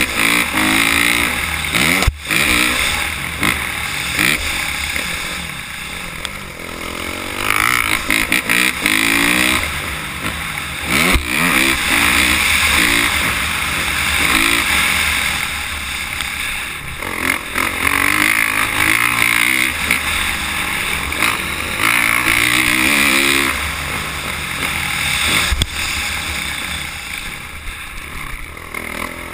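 Dirt bike engine heard from on the bike, revving up and dropping back again and again as the rider accelerates, shifts and rolls off around a motocross track.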